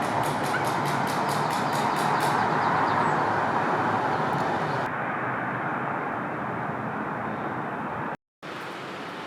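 Steady vehicle noise. For the first two seconds or so, quick clicks run through it at about five a second.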